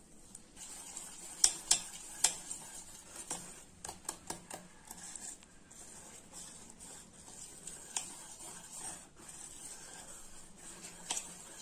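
Wire whisk beating a thick gram-flour and rice-flour batter in a steel bowl: wet stirring with sharp clinks of the whisk against the bowl, the loudest about one and a half to two seconds in. The batter is still too thick and needs more water.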